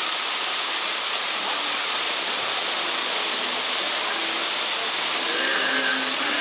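Steady hiss of rushing and falling water in a boat ride's dark cave.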